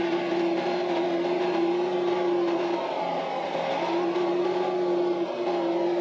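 Branson 2515h compact tractor's three-cylinder diesel running steadily as the tractor drives along, heard from the driver's seat. A steady whine over the engine note drops out for about a second midway, then returns.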